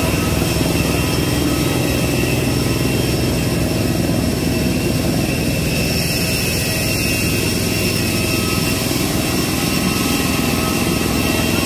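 Jet airliner's turbines running on the apron: a steady rush of noise with a high whine held on several tones over a low hum.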